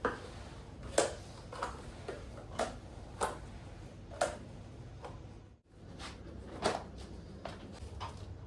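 Irregular light clicks and knocks of things being handled in a kitchen, about seven in all, over a low steady hum.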